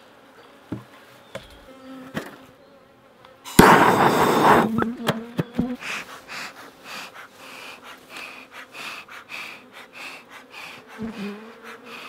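Honeybees buzzing around an open hive, single bees humming close past the microphone now and then. A few light knocks, and about three and a half seconds in, a loud rush of noise lasting about a second.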